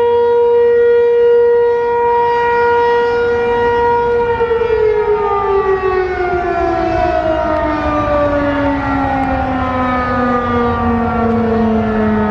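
Federal Signal 508-128 outdoor warning siren holding one steady tone, then, about four seconds in, winding down with its pitch falling slowly and evenly. This is the siren coasting down at the end of its steady alert signal.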